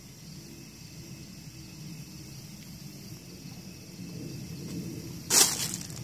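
Faint steady outdoor background, then, a little over five seconds in, a short loud rustle of packaging as a hand reaches into a cardboard box of plastic-wrapped parts.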